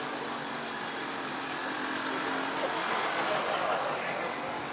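Steady street traffic noise with a vehicle engine running, a little louder in the middle.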